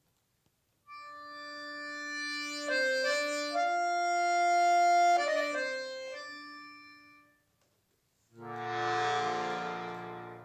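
Solo button accordion playing a slow phrase of held chords that swells and then fades away to nothing. After a brief pause a new chord swells in near the end.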